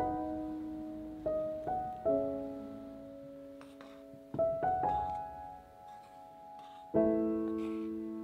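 Slow background piano music: sustained notes and chords that ring out and fade, with a louder chord about seven seconds in.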